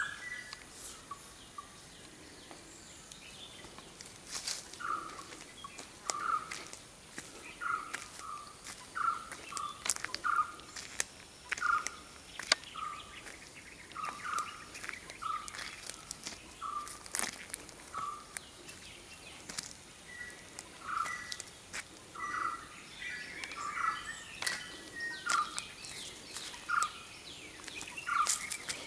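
A bird calling a short note over and over, a little more than once a second, with a brief pause partway through and some higher chirping from other birds later on. Scattered sharp clicks and crackles sound over it.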